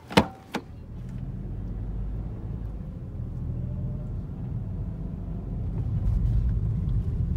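Two sharp clicks at the start, then the steady low rumble of a car heard from inside the cabin while driving, engine and tyre noise, growing a little louder about six seconds in.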